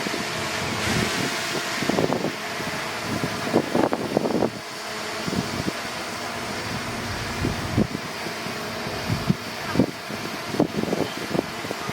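Diesel engine of heavy earthmoving machinery running steadily, with short irregular louder surges.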